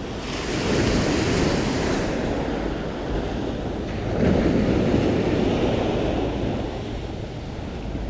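Sea surf washing onto the shore, swelling about a second in and again about four seconds in, with wind buffeting the microphone.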